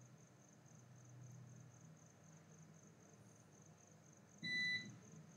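Quiet room with a faint, high-pitched trill pulsing evenly throughout, and one short electronic beep about four and a half seconds in.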